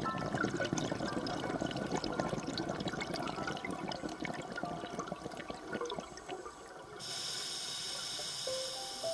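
Underwater scuba breathing: a diver's exhaled bubbles gurgle and crackle from the regulator for about seven seconds, then a steady hiss of an inhalation through the regulator starts near the end.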